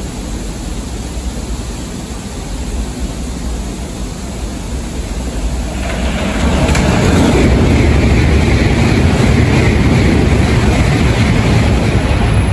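E7 series Shinkansen passing through the station at high speed in heavy snow. A steady rushing noise swells about six seconds in as the train arrives, then stays loud as it rushes past on the through track.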